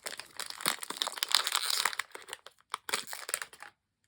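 A small blind bag being handled and opened by hand: dense crinkling for about two seconds, then a few scattered crackles, cutting to silence near the end.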